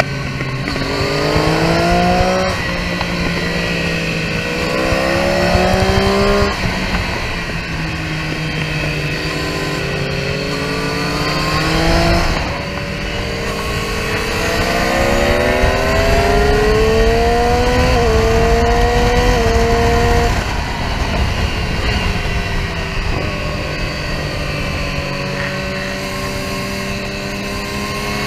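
Triumph Street Triple R three-cylinder engine on track, revving up under acceleration and falling back as the throttle closes for corners, several times over. A long pull in the middle rises with two quick upshifts. Wind rushes over the microphone throughout.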